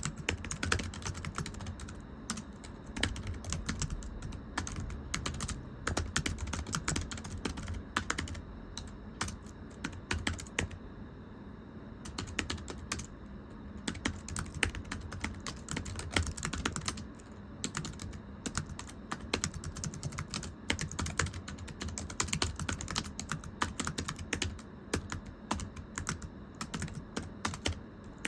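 Continuous fast typing on a very thin, low-profile computer keyboard: a dense, irregular run of light, flat, slappy key taps, easing off for a moment about eleven seconds in before carrying on.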